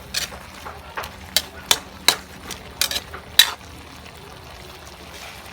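A cooking utensil knocking and scraping against a pan about eight times in quick, uneven succession over three seconds, then stopping, while frogs are being cooked.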